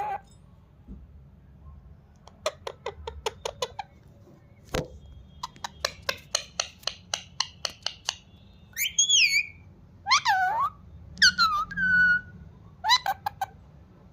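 Pet green parrot making rapid runs of sharp clicks, about five a second, with shrill whistled squawks in the middle that bend up and down in pitch.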